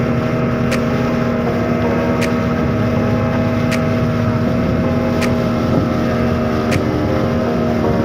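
Small river boat's motor running steadily at cruising speed, with water rushing past the hull and wind on the microphone.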